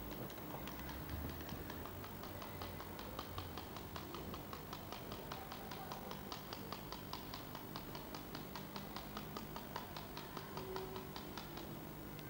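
Rapid, even ticking, about four or five ticks a second, that stops shortly before the end.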